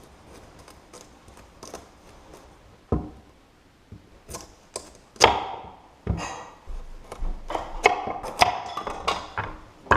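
Kitchenware being handled: an irregular run of knocks, thuds and clinks, some with a brief ring, the loudest about five seconds in and a quicker cluster near the end.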